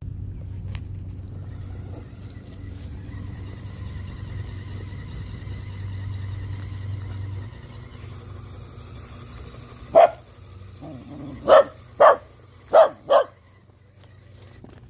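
The electric motor and drivetrain of an RC crawler truck running with a steady hum, which fades about halfway through. Then a dog barks five times in quick, loud succession.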